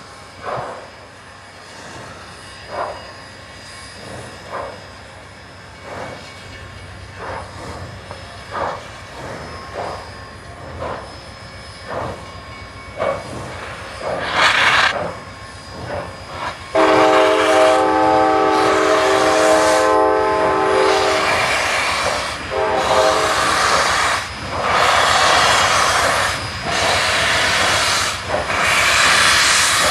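Double-headed steam locomotives, Santa Fe 4-8-4 No. 3751 and Grand Canyon Railway 2-8-2 No. 4960, working slowly, their exhaust chuffs coming quicker through the first half. About 17 s in, a steam whistle sounds several notes at once in one long blast, then a shorter one. Loud rhythmic hissing of steam from the open cylinder cocks follows.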